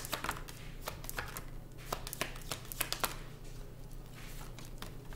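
A tarot deck being shuffled and handled by hand: a scatter of irregular soft card clicks and flicks.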